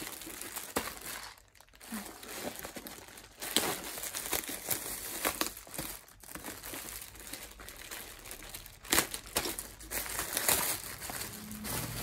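Packaging crinkling and rustling as it is handled and opened by hand, in irregular spells, with a short lull about a second and a half in and sharper, louder rustles around three and a half and nine seconds in.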